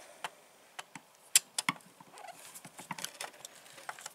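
Small metallic clicks and clinks of a Torx screwdriver and small metal parts against the chainsaw's housing as the oil pump's screws are worked loose. Scattered sharp ticks, the loudest about a third of the way in, with a cluster in the second half.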